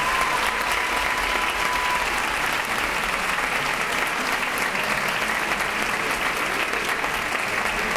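Theatre audience applauding, a dense, even clapping that holds steady throughout. A faint thin steady tone sounds over the first two seconds.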